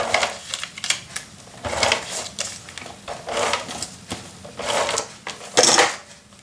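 Paper being cut and handled: about six short, scraping strokes at irregular intervals, the loudest near the end.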